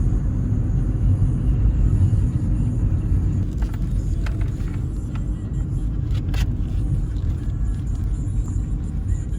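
Steady low road rumble of a car driving, heard from inside the cabin, with a couple of faint clicks partway through.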